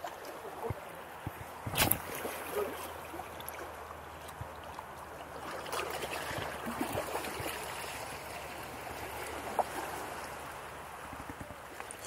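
Small waves washing and lapping against the rocks of a seawall, a steady wash of water, with one sharp click about two seconds in.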